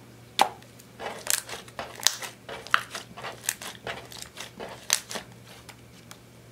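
Clear slime with blue eyeshadow mixed in, kneaded and pressed by hand, giving a run of sharp sticky pops and clicks. They are densest from about one to five seconds in and die down near the end.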